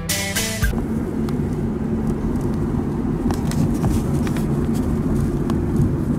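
Music cuts off about half a second in, giving way to a steady low rumble with a few faint clicks.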